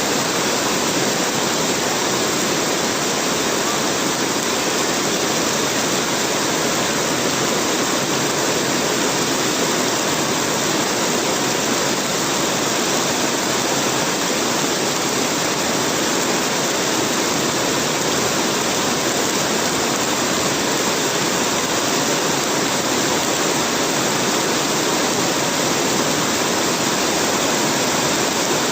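Heavy rain falling in a steady, loud, unbroken hiss.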